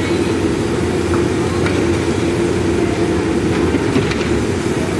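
Diesel engine of a backhoe loader running steadily under load while it works its bucket, with a few faint knocks.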